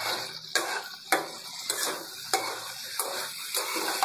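Metal spatula scraping against a kadai, stirring and turning pointed gourds in frying spice paste in about seven even strokes, over a steady hiss of frying.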